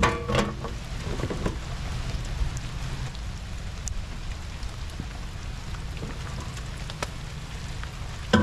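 Steady rain falling, with scattered sharp drop ticks and a low rumble underneath. A brief knock and clatter in the first second or so.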